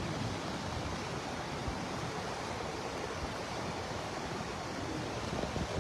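Floodwater of a river in spate rushing past: a steady, even rush of water.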